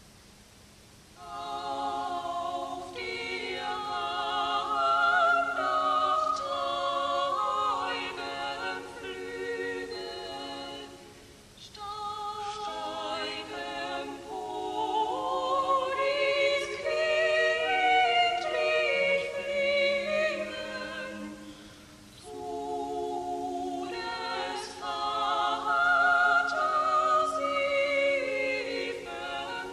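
A choir singing a sacred song in long, slow phrases with vibrato, coming in about a second in and pausing briefly between phrases twice.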